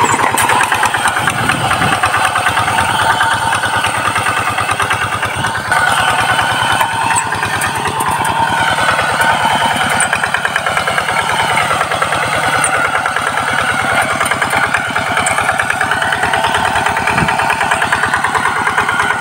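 Single-cylinder diesel engine of a Quick two-wheel hand tractor running steadily under load as it drags a levelling harrow through tilled soil. It makes a fast, even chugging.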